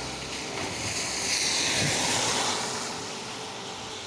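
A car passing on a wet road, its tyres hissing on the wet asphalt. The hiss swells through the first half and fades toward the end.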